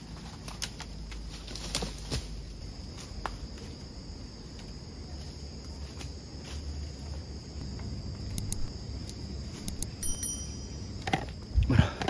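Rainforest insects keep up a steady high-pitched drone, over scattered knocks, snaps and rustles of dead branches being propped against a stick-frame shelter and feet shifting in leaf litter. A louder handling bump comes near the end.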